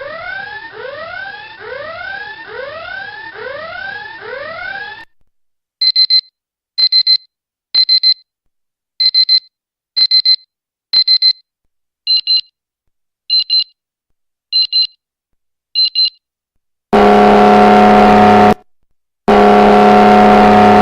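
Electronic alarm sounds in sequence: a rising whooping tone repeating for about five seconds, then short double beeps about once a second, then two long, loud buzzer blasts near the end.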